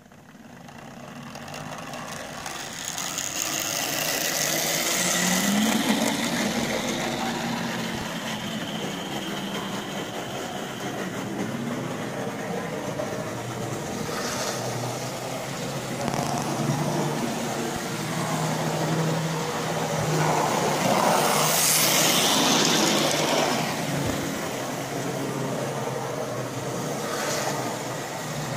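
Hornby OO gauge Class 31 model diesel locomotive running on the layout: a steady electric motor hum and wheel noise on the rails. It gets louder over the first few seconds as it pulls away, with a brief rise in pitch as it picks up speed.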